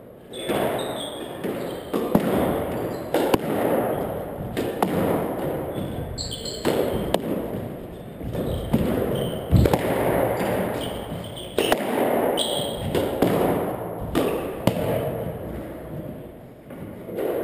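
Squash rally: sharp cracks of the ball off rackets and the walls about once a second, ringing in the court, with brief shoe squeaks and running footsteps on the wooden floor.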